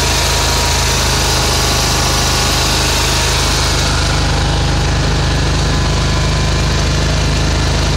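Spartan SRT XD zero-turn mower's 33-horsepower Briggs & Stratton Vanguard V-twin engine running steadily at constant speed.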